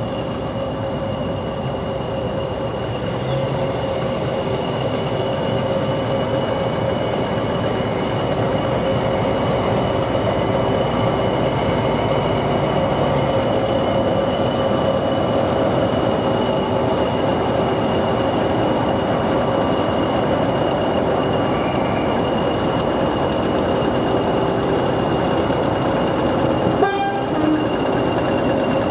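Class 20 diesel locomotive's English Electric eight-cylinder engine running, a steady drone with a high whine above it, growing a little louder over the first few seconds. There is a short knock near the end.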